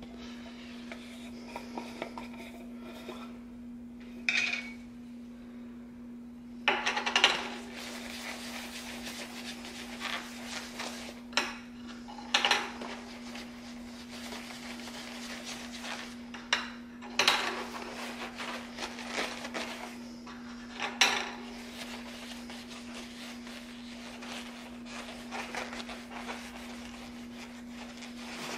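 Leather of a new Rawlings Heart of the Hide PROYM4BC catcher's mitt being handled and worked by hand on a padded bench: irregular rubbing and rustling with a few sharper knocks, over a steady low hum.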